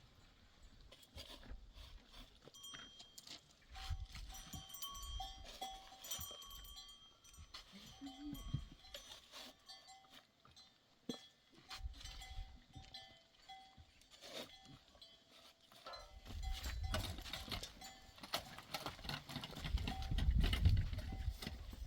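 Bells on grazing sheep and goats clinking irregularly as the flock moves, with scattered small knocks.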